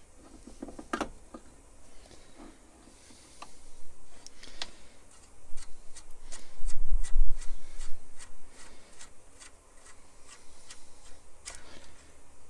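Metal lathe parts clicking and knocking as they are handled and fitted during assembly of an Atlas 10-inch lathe's cross slide. Scattered clicks at first, then a steady run of light ticks, about three a second, through the second half.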